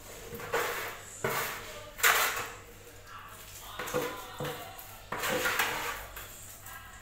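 Trowel scraping wet cement mortar out of a plastic bucket and working it onto the floor, a series of separate scrapes every second or so.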